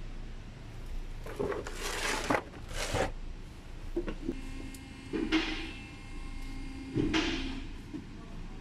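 Metal tools and clutch parts being handled at a tool cart: several scrapes and clanks, with a faint steady tone through the middle.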